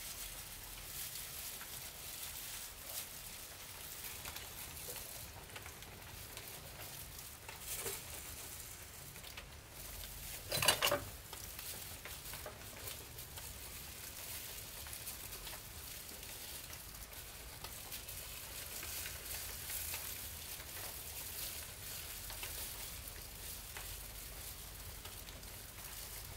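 Fine crinkling and rustling of thin plastic gloves and spring-roll wrappers as filled spring rolls are rolled by hand, a steady crackle with small ticks. A brief, louder sharp sound stands out about ten seconds in.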